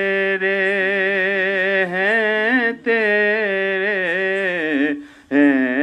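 A man singing an Urdu hamd unaccompanied, drawing out long held notes with a wavering, ornamented pitch. He breaks off briefly about three seconds in and again near the end.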